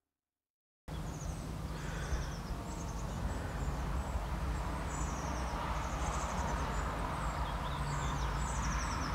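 Woodland ambience with birds singing: repeated short, high trilling phrases over a steady low background rumble, starting about a second in after silence.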